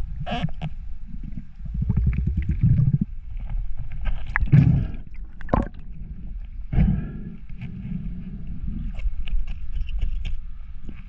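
Underwater sound through a diver's camera housing: a low, uneven rumble of water moving around the camera, with sharp clicks and knocks as the speared wahoo is handled and struggles, and a short rattling burst about two seconds in.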